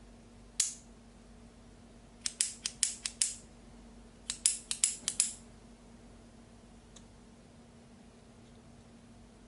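Small metal parts of a knuckle-duster clicking against each other as they are handled and fitted together: one sharp click, then two quick runs of about five clicks each, and a faint click near the end.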